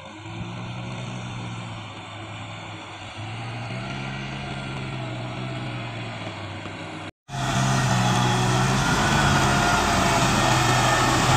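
Kubota M6040SU tractor's four-cylinder diesel engine running steadily at a working speed. The sound drops out abruptly about seven seconds in and resumes much louder and closer.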